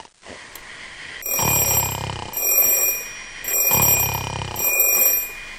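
A person snoring twice, with a high, steady electronic ringing tone sounding over and between the snores, like an alert.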